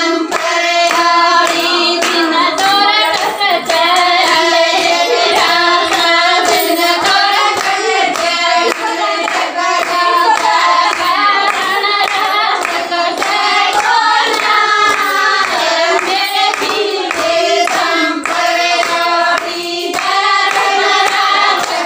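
Women singing a Haryanvi jakri folk song without instruments, keeping time with steady handclaps about two a second.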